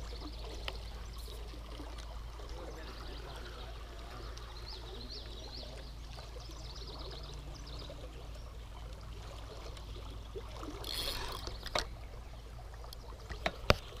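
River water running over the rocks of a broken dam, a steady wash of flowing water. A brief rustle about eleven seconds in and two sharp knocks near the end come from handling the camera or rod.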